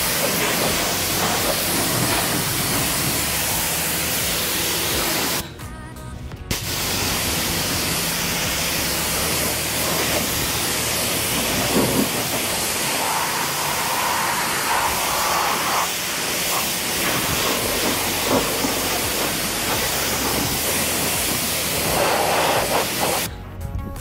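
Pressure-washer water jet spraying onto a car's wheel and tyre, a steady loud hiss. It cuts out for about a second a little over five seconds in, then runs again and stops shortly before the end.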